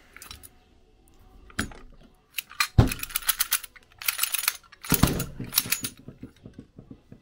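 Metal clinking and rattling of a snowmobile twin carburetor and its loose linkage parts as it is handled on a workbench during disassembly. There are sharp knocks about three seconds in and again about five seconds in.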